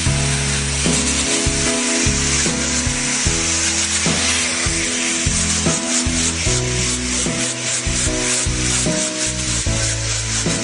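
Wood being sanded, a continuous rubbing hiss, over background music with held low notes.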